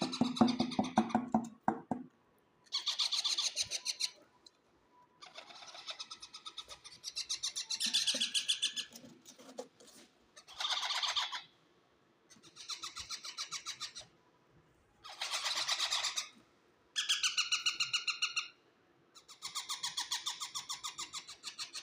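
Pet parrot calling in a series of about eight harsh, rasping calls, each a second or so long, with short pauses between them.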